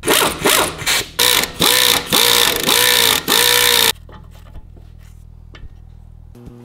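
Power impact wrench run in a quick series of short trigger bursts on the brake and hub bolts. Its motor pitch dips and picks up again with each burst, and it stops suddenly about four seconds in.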